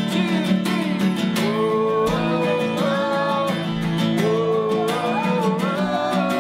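Acoustic guitar strummed in a steady rhythm, with voices singing a melody over it from about a second and a half in.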